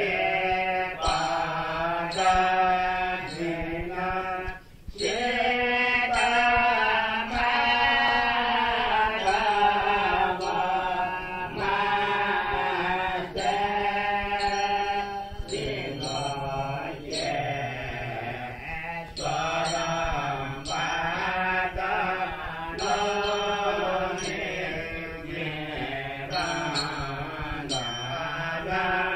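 Chanted devotional mantra: a voice intoning in long, wavering held notes over a steady low drone, with a short pause about five seconds in.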